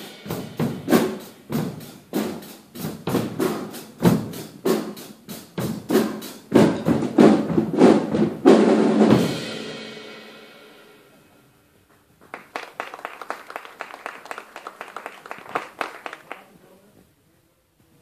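Several drum kits played together, loud strokes on drums and cymbals, ending on a hit whose cymbals ring out and fade about nine seconds in. A few seconds later a quicker, softer run of strikes follows for about four seconds.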